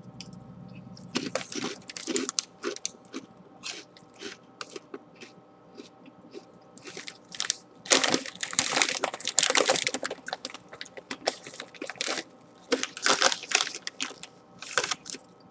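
Fritos chorizo and chipotle corn chips being chewed close to the microphone: dry crunching in irregular bursts, densest about eight to ten seconds in and again near the end.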